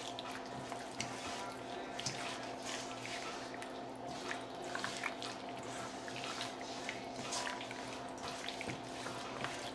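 Wet squelching and smacking of raw chicken breasts being worked by gloved hands in a buttery spice marinade in a stainless steel bowl, in a run of short, irregular squishes.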